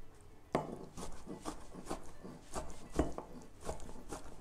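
Large kitchen knife chopping marinated artichoke hearts on a wooden butcher-block board: a run of quick knocks, about three a second, starting about half a second in.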